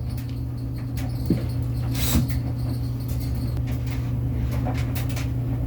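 A few scattered light clicks and scrapes from hands handling washing-machine parts, the clearest about two seconds in, over a steady low hum.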